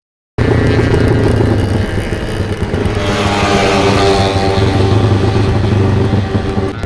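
Motorcycle engine running steadily at road speed. It begins abruptly after a moment of silence, and a hiss swells and fades in the middle.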